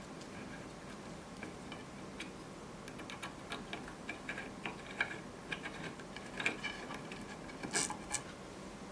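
Light, irregular clicks and taps over a low steady background. They grow more frequent from about three seconds in, and a sharper cluster of clicks comes near the end.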